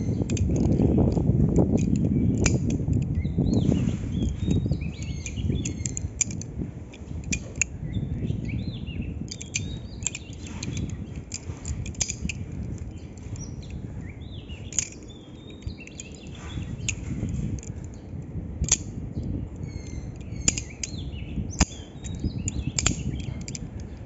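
Balisong (butterfly knife) being flipped: the handles clack and click irregularly as they swing around the pivots and meet. Birds chirp in the background over a low rumbling noise that is heaviest in the first few seconds.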